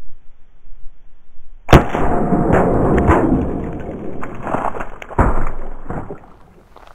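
A single loud gunshot from an 1858 Remington-pattern cap-and-ball revolver firing .45 ACP through a Howell conversion cylinder, about two seconds in. A few seconds of echo and clatter follow, with another sharp crack about five seconds in.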